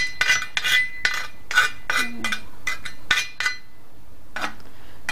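Kitchen utensils and cookware being handled: a quick run of sharp metallic clinks and knocks with a brief ring, then a quieter stretch and one more knock near the end.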